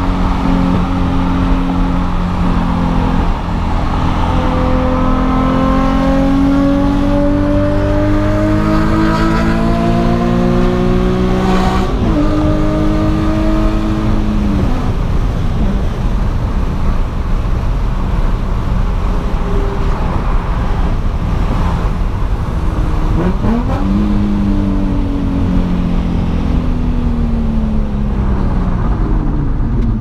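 Nissan 350Z's V6 engine accelerating, heard from inside the cabin: its pitch climbs steadily for about twelve seconds, drops sharply at a gear change and eases off. A second shorter pull rises and falls away near the end, over steady road rumble.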